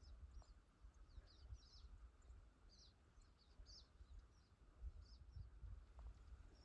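Faint, high, short bird chirps repeating every second or so, over a low rumble of wind or handling on the microphone.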